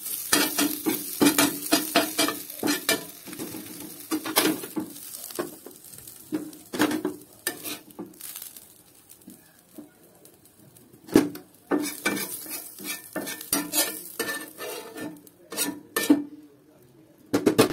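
Steel spatula scraping, stirring and tapping against a black iron pan while turning and scooping a potato and tomato filling, with light sizzling of oil. The strokes come in quick runs, ease off in the middle, and a sharp clank sounds about 11 seconds in.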